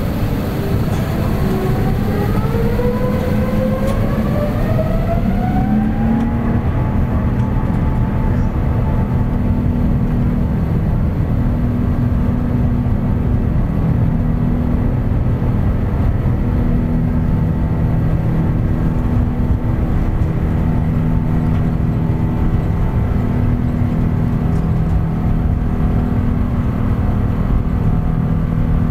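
Rolls-Royce Trent XWB turbofans on an Airbus A350 spooling up for takeoff, heard inside the cabin: a whine climbs in pitch over the first six seconds, then holds steady over a loud, constant rumble.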